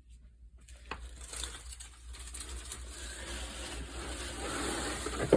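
Rustling and crinkling of items being handled and moved, with a click about a second in and a sharp knock near the end.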